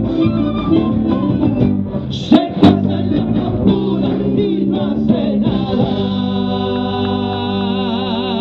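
Argentine folk music for a gato cuyano, played on guitars with voices. There are a few sharp accents a couple of seconds in, and about halfway through the piece settles into a long held final note.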